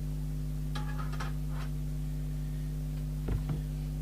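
Steady electrical mains hum. Faint handling clatter comes about a second in, and two light knocks come near the end.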